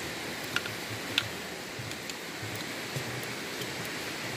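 Steady rushing of a stream below a wooden-plank suspension bridge, with a few scattered light ticks of a dog's claws and footsteps on the planks.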